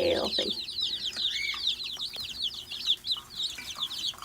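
A brood of baby meat chicks peeping continuously, many short, high, falling cheeps overlapping into a dense chorus.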